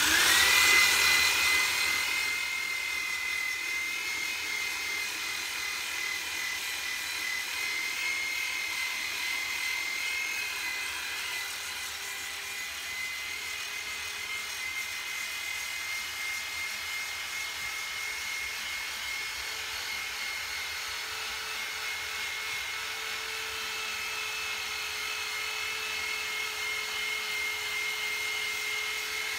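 Corded electric drill spinning a strip disc against a rusty cast iron kettle, grinding off rust: a steady high motor whine over the scratchy hiss of the abrasive on the iron. The drill spins up right at the start and runs steadily on.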